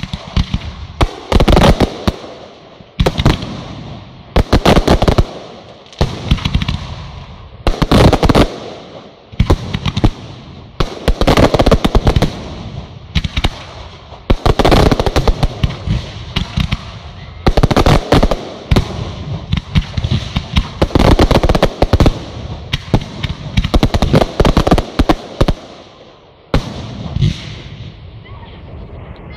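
Aerial fireworks going off in rapid succession. Shells burst with sharp bangs and crackle, in dense clusters every second or two.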